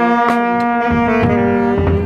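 Brass band playing a slow tune in long held notes, with a low bass line joining about a second in.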